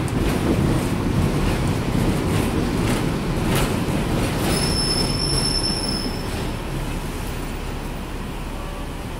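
Hong Kong double-decker tram running on its street rails, heard from on board: a steady low rumble of wheels on track with a few sharp clacks, and a high, steady metal wheel squeal about halfway through lasting under two seconds. The rumble eases off a little toward the end.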